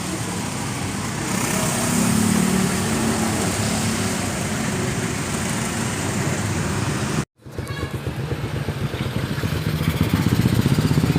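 Small three-cylinder engine of a Suzuki Forsa running steadily. It cuts out abruptly about seven seconds in, then comes back with a pulsing beat that gets louder near the end.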